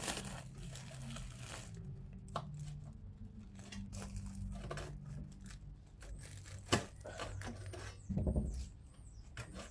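Hands rustling through glass-wool insulation and working a steel brace strap through the wall framing: crinkling and scraping with scattered sharp clicks, and one louder click about two-thirds of the way in.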